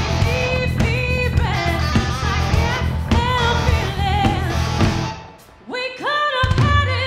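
Rock band playing a song, lead vocals over electric guitar, bass and drums. About five seconds in the music drops out for about half a second, then the voice and guitar come back in with notes sliding up.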